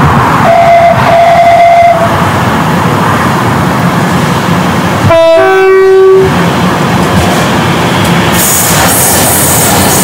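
Train horns over the running noise of trains: a single high horn note sounded twice early on, then about five seconds in a two-tone horn, a short high note dropping to a longer low one. Near the end the rumble and clatter of a diesel freight train running through grows louder.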